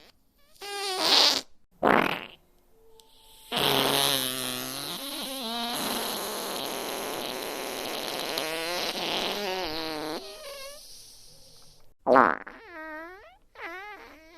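A series of fart sound effects: two short farts, then one long fart of about seven seconds whose pitch wobbles up and down, then three short farts in quick succession near the end.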